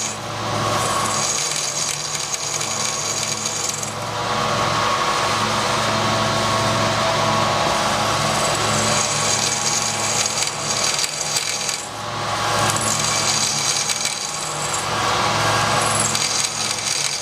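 Milling machine spindle running in reverse, driving a left-hand drill as it drills out a broken stud: a steady motor hum under a cutting noise that eases and swells a few times.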